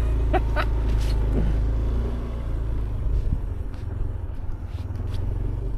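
Motor scooter running while riding a rough dirt track: a steady low engine hum that turns into a rougher, uneven rumble about halfway through.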